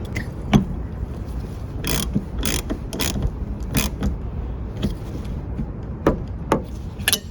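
Scattered sharp clicks and knocks of hand work on a car's tailgate during reassembly, about nine of them at uneven intervals, over a low steady rumble.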